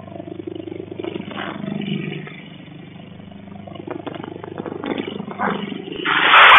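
A leopard and a pet dog fighting, picked up by a CCTV microphone: low growling and scuffling while the leopard holds the dog. About six seconds in, loud shrill yelping breaks out as the dog gets free.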